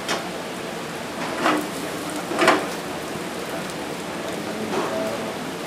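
Diced tomatoes, onions and garlic sizzling in oil in a frying pan over a gas flame: a steady hiss with a few louder crackles, the loudest about two and a half seconds in.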